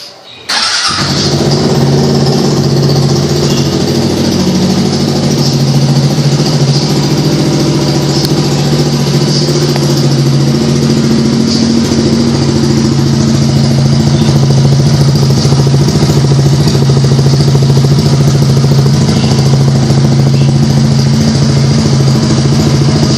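Suzuki Burgman 125i scooter's single-cylinder four-stroke engine idling steadily through an aftermarket Roncar RS aluminium exhaust tip; the loud engine sound comes in abruptly about half a second in.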